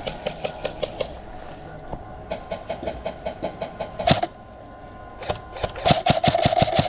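Airsoft guns firing in rapid bursts of sharp clicking shots, about six a second, in three runs. The last and loudest run comes about five seconds in, with a steady motor whine under it.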